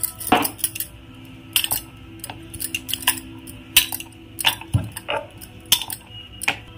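Glass bangles clinking in sharp, irregular clinks on a wrist working dough, with a duller knock on the wooden rolling board about two-thirds of the way in.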